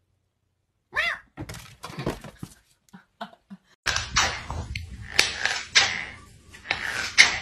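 A brief cry that rises and falls in pitch and a few scattered knocks, then, from about four seconds in, a dense run of scraping, rubbing and crunching clicks as a cat bites and claws at a rubber slide sandal.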